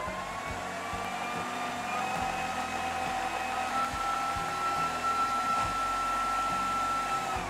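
Electric food processor running with its whisk attachment, whisking coconut cream. Its motor starts up, whines steadily, stepping up a little in pitch as it runs, and stops near the end.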